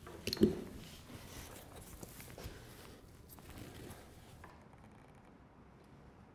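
Quiet handling of a pneumatic rivet gun and tungsten bucking bar being positioned on the aluminium skin: one soft knock about half a second in and a few faint taps, then near quiet.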